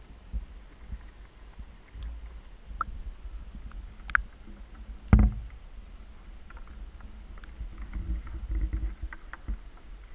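Live crawfish clicking and scraping against the sides of a plastic bucket: scattered small clicks over a low rumble, with one louder knock about five seconds in and a busier patch of scrabbling near the end.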